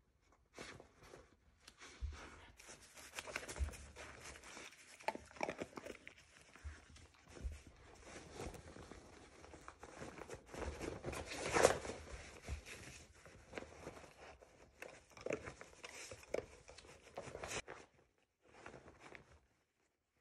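A dog nosing and rummaging through the pockets and flaps of a plush fabric snuffle mat for hidden treats, the cloth rustling and scuffing in irregular bursts, with one louder rustle about two-thirds of the way through.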